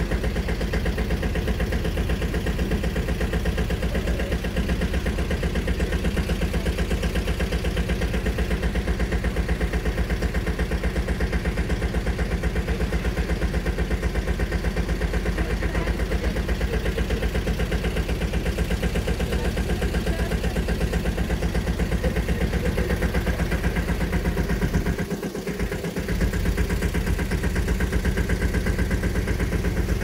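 Small river tour boat's engine running steadily at low speed, with a brief drop about five seconds before the end.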